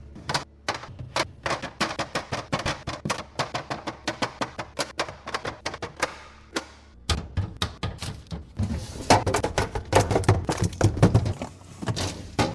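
Rapid clicking and tapping of plastic fridge containers and lids being handled and set down, many small knocks in quick succession, heavier and louder in the second half.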